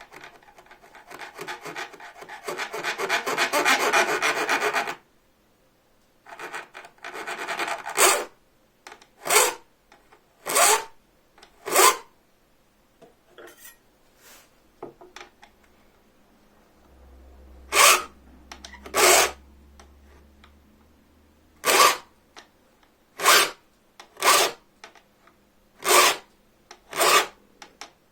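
A hand file cutting teeth into a bow-saw blade. It starts with a run of rapid strokes that grows louder over the first five seconds, then settles into single strokes about a second or so apart, with a pause in the middle.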